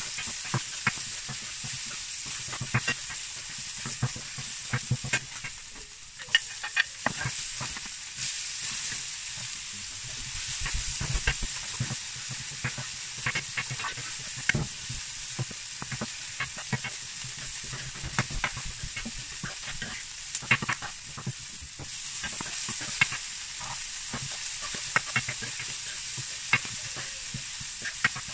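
Bacon and chopped vegetables sizzling in a frying pan, with a steady hiss. They are stirred with a plastic spatula that scrapes and clicks against the pan many times at irregular intervals.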